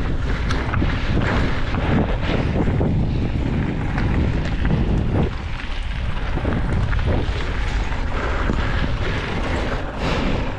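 Wind buffeting the camera microphone while a mountain bike rolls over a dirt singletrack trail, with frequent short clatters and knocks as the bike goes over bumps.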